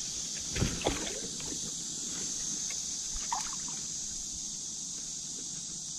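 Light splashing and trickling water as a hand grabs a hooked carp in the shallows.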